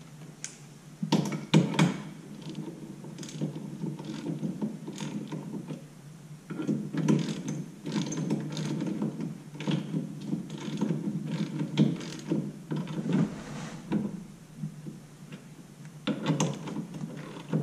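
Hand ratchet wrench clicking in short, irregular bursts while bolts on a brake bracket on the wheel upright are run in and tightened until snug.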